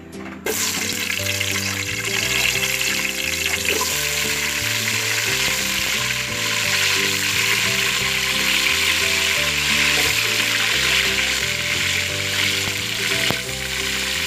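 Cubed potatoes hitting hot cooking oil in a pot and frying: a sizzle that starts suddenly about half a second in, then carries on steadily and loudly.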